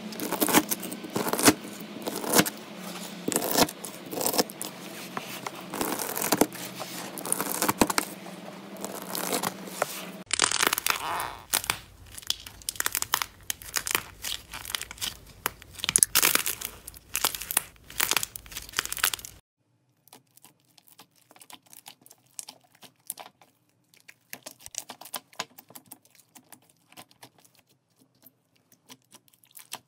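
Slime being handled for ASMR: bead-filled slime crackling and popping densely as it is cut, then fluffy slime crackling and tearing as it is stretched by hand. About two-thirds of the way in the sound drops suddenly to sparser, quieter clicks and squelches as fingers press into a bowl of soft slime.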